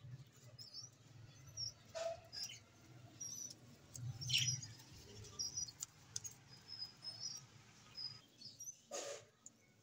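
Budgerigars chirping in short, high calls scattered throughout, with a few brief scrapes in between.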